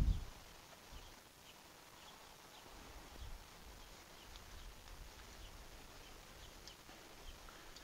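A low thump at the start, then faint scattered light metal clicks from hands and a small tool working the thumb-screw terminal nuts on a 1924 Fordson F's spark plugs, over quiet outdoor background.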